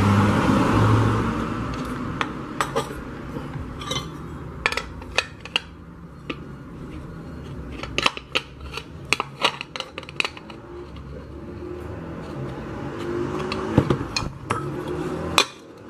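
Steel wrenches clinking and knocking against a pressure-cooker lid as the new safety seal's nut is tightened: scattered sharp metallic clicks, thickest in the middle, with scraping and handling noise in the first second.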